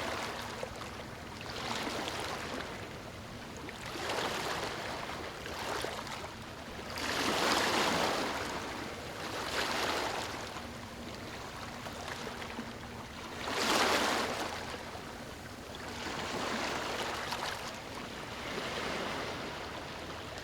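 Small water waves washing in, the wash swelling every two to three seconds, loudest about seven and fourteen seconds in.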